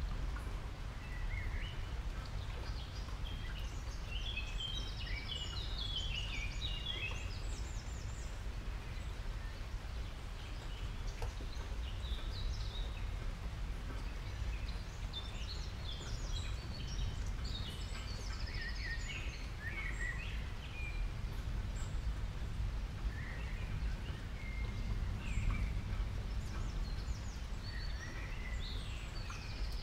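Faint high-pitched animal chirps in scattered clusters over a steady low background rumble.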